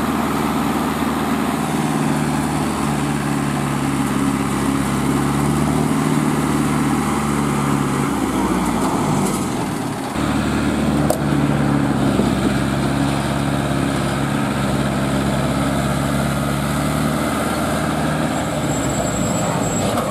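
Diesel engine of a hydra mobile crane running steadily. Its note drops away about eight seconds in and picks up again about two seconds later.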